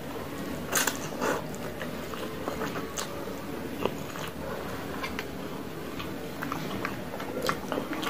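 A person slurping and chewing a mouthful of Indomie fried instant noodles, with short, sharp wet mouth smacks at irregular moments.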